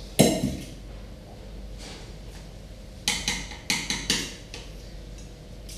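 Kitchenware handling: a single sharp knock as a mixing bowl meets the counter, then, about three seconds in, a quick run of clinks and scrapes as a spatula works in a plastic mixing bowl.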